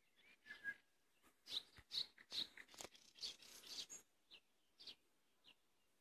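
A songbird singing a rapid, varied phrase of sharp, high notes for about four seconds, followed by a few single notes.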